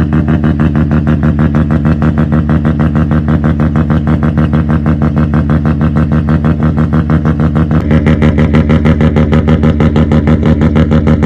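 Rotary engine idling with a rapid, even, lumpy pulse. About eight seconds in it gets a little louder and its tone shifts.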